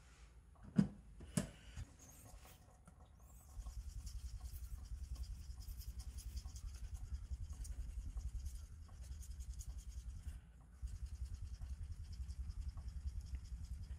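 Small deba kitchen knife being stroked rapidly back and forth on a wet 5000-grit finishing whetstone, a steady rhythmic scraping that starts a few seconds in and pauses briefly near the end: the final polishing stage after the chipped edge was reground. Two sharp knocks come about a second in.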